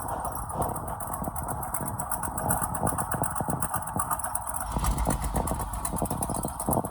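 Chevy van engine idling, its exhaust pulsing in a fast, even rhythm, with a brief swell in the low rumble about five seconds in.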